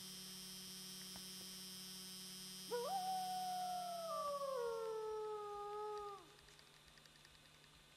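A wolf howls once, starting about three seconds in: a quick rise in pitch, then a long, slowly falling note that drops away at the end, about three and a half seconds in all.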